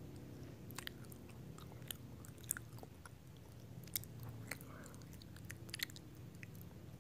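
Close-up chewing and biting of a crunchy snack bar, with a few sharp crunches scattered through, the loudest about two and a half and four seconds in.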